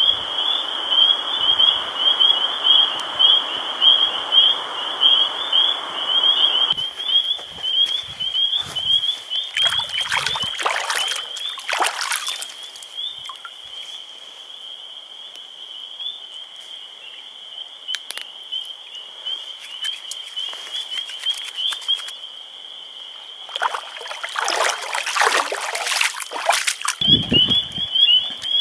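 A chorus of frogs calling in a steady, pulsing high trill. Water splashes as hands are washed in the lake, once about ten seconds in and again near the end. A rushing hiss fills the first several seconds.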